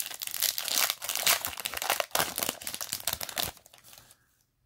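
Foil wrapper of a Yu-Gi-Oh! booster pack crinkling and tearing open: a dense run of crackling rustle that dies away about three and a half seconds in.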